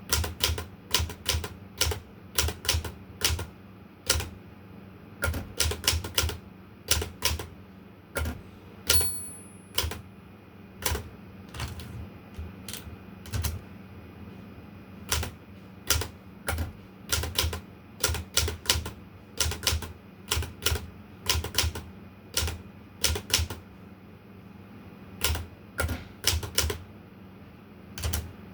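Olympia Traveller de Luxe portable manual typewriter being typed on: irregular flurries of sharp key strikes with short pauses between them. About nine seconds in there is a brief high ring.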